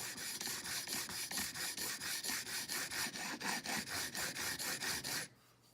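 Chisel bevel, clamped in a Sharp Skate honing guide, rubbed back and forth on a 400-grit sharpening stone in quick, even strokes, about five a second, stopping suddenly near the end.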